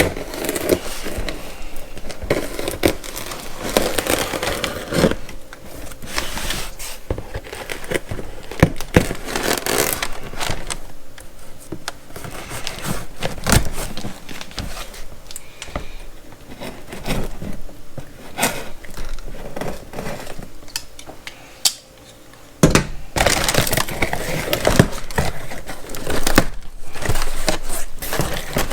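A large cardboard shipping box being opened and unpacked by hand: irregular tearing, scraping, crackling and crinkling of cardboard and packing material, with a short lull about three-quarters of the way through.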